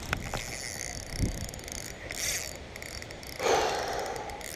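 Fishing reel working as a hooked carp is played on the rod: faint mechanical clicking, with a louder burst of rustling noise about three and a half seconds in.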